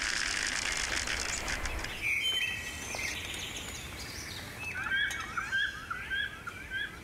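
Zipline trolley whirring along its steel cable, fading away over the first two seconds. In the second half a songbird chirps in quick repeated short notes, about three a second.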